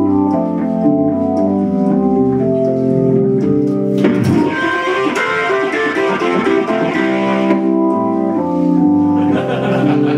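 Yamaha MOX synthesizer playing a Hammond-style organ preset in held chords. About four seconds in, the tone turns gritty and distorted for a few seconds as the organ's distortion is turned up, then clean chords return.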